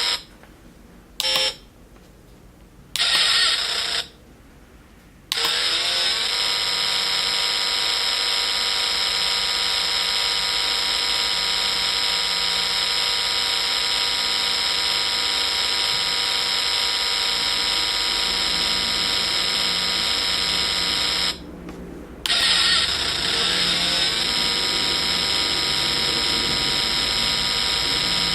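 Kyohritsu KP-SND45 sound-effect kit playing its synthesized car engine effect, a buzzy electronic tone. It comes in a few short bursts with silent gaps over the first five seconds, then runs steadily with a brief cut about 21 seconds in, and there is a short pitch sweep each time it comes back.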